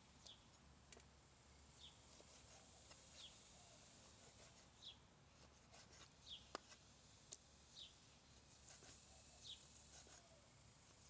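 Faint, quiet outdoor scene: a bird gives a short, high, falling chirp about every one and a half seconds. A few sharp knocks of a cleaver blade meeting a wooden chopping board come through as it slices octopus, the clearest a little past the middle.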